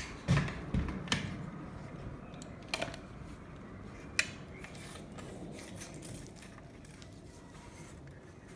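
A few sharp clicks and light knocks, most of them in the first second and one last click about four seconds in: a spirit level being handled and set against a window frame. After that there is only a low steady room background.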